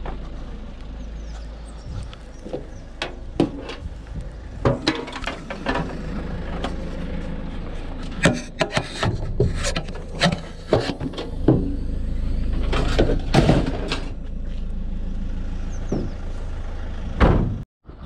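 Knocks and clatters of scrap being handled and loaded into a van, over the steady hum of its idling engine. A heavy thump comes near the end, and then the sound breaks off briefly.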